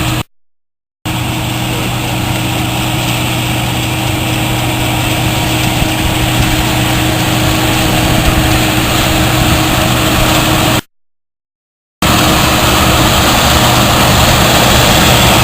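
Combine harvester running steadily in the soybean field: a constant engine hum under a broad rush of noise. It drops out to dead silence for about a second twice, once just after the start and once near the end.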